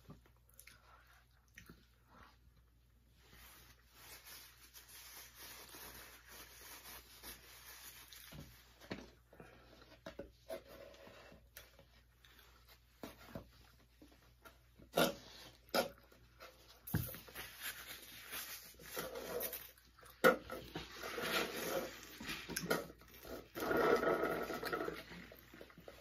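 Close mouth sounds of eating chocolate-glazed donuts: chewing, lip smacks and small clicks. In the second half, sips and slurps through straws from foam cups come in, growing louder and busier near the end.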